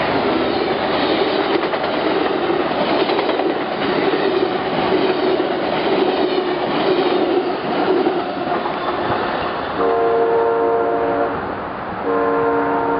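Amtrak passenger train of Amfleet cars rushing past close by, with steady wheel and rail noise that eases off as the cars go by. Near the end a locomotive's multi-chime air horn sounds two long blasts, less than a second apart.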